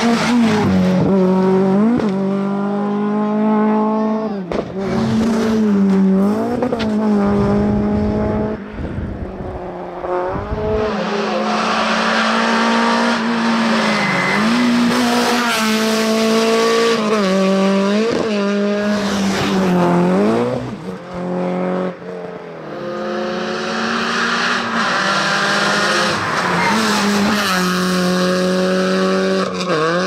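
Rally cars at full throttle on a tarmac stage, one after another, beginning with a Citroën AX. The engines rev hard, climb in pitch through each gear and drop sharply at each gear change or lift for a corner.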